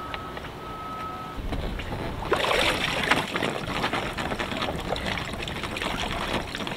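Water streaming, splashing and dripping off the lower unit of a 6 hp Evinrude outboard motor as it is lifted clear of the water, starting a little over two seconds in and carrying on. Before that, a thin beep repeats a few times.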